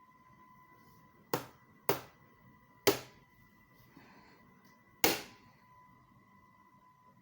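Four sharp knock-like hits, unevenly spaced, each dying away quickly, over a faint steady high-pitched tone.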